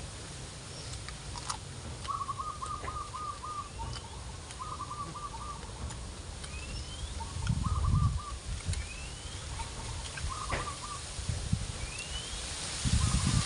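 A bird calling over and over, about every two seconds: a short stuttering trill and a quick rising whistle. Gusts of wind rumble on the microphone, strongest near the middle and at the end.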